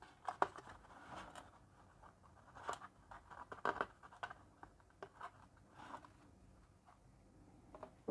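Faint handling noise: scattered light clicks, taps and rustles as an opened plastic LED bulb is moved about and set down on its cardboard box.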